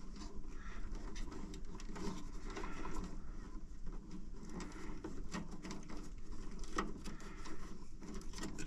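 Faint rustling and scattered small clicks of plastic-insulated wires being handled and pulled apart inside a gas garage heater's sheet-metal cabinet.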